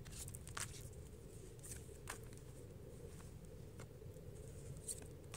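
A deck of oracle cards being shuffled by hand: faint, scattered card flicks and clicks over a low, steady background rumble.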